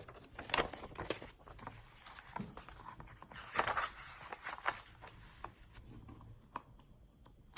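Paper pages of a thick handmade journal being turned and handled: a run of rustles and light taps, with the loudest rustle about three and a half seconds in.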